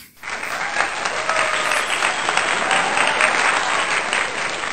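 Steady applause from a crowd, a dense clatter of clapping that starts a moment in.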